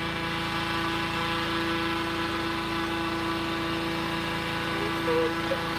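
Engine-driven balloon inflator fan running steadily, blowing cold air into the envelope of a hot air balloon lying on its side during the cold-inflation stage, with one constant tone over an even rushing noise.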